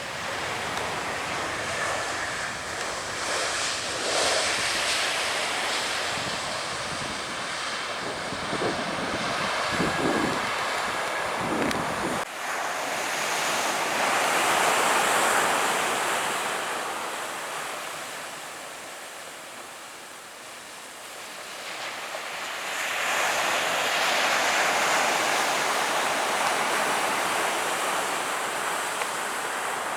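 Surf washing on the beach in slow swells that rise and fade every several seconds, with wind rumbling on the microphone until it drops away suddenly about twelve seconds in.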